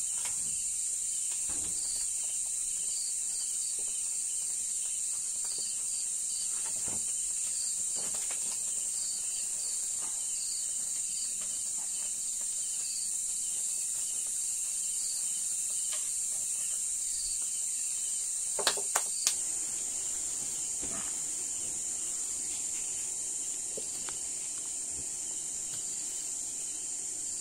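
Night insect chorus: a steady high-pitched trill of crickets, with a second regular pulsing chirp running under it. There are occasional faint crackles, and three sharp clicks in quick succession about two-thirds of the way through.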